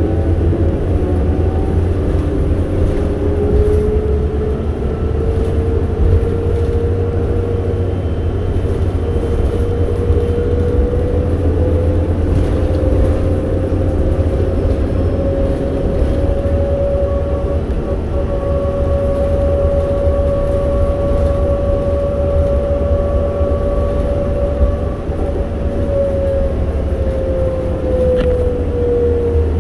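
Cabin sound of a 2008 New Flyer C40LFR natural-gas transit bus underway: a steady low engine and road rumble with a driveline whine that rises in pitch as the bus picks up speed, holds steady, then falls near the end as it slows.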